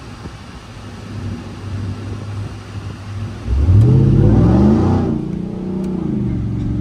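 Supercharged 6.2-litre V8 of a Ram TRX pickup going to full throttle about three and a half seconds in. The engine note jumps in loudness and rises in pitch, breaks off briefly about five seconds in, then pulls on loud and steady.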